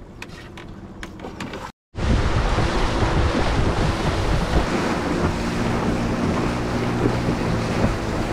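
Motorboat engine running steadily while under way, with water rush and wind buffeting the microphone; it starts abruptly about two seconds in, after a brief quieter stretch.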